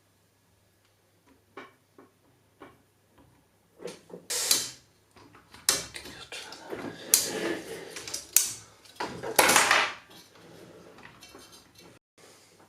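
Hands handling computer hardware during assembly: scattered small clicks and taps, then several louder rustling, scraping bursts in the middle, fading to a faint steady buzz near the end.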